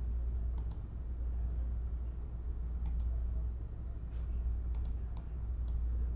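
A steady low hum with a scattering of faint, sharp clicks, some in quick pairs, about eight in all.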